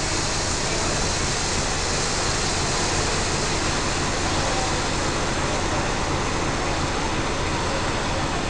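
Steady hiss of steam escaping around the cylinders of the standing steam locomotive 230.516, with no exhaust beats.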